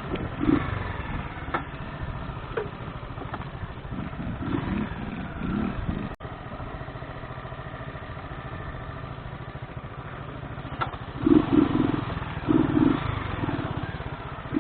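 Motorcycle engine running steadily, with a few louder surges near the end.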